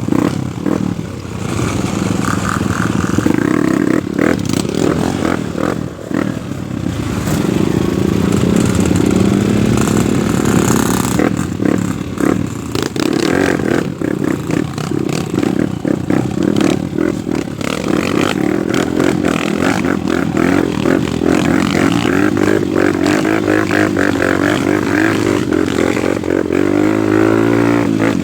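Off-road motorcycle engine revving up and down again and again under load, with clattering knocks over it; it revs up once more near the end.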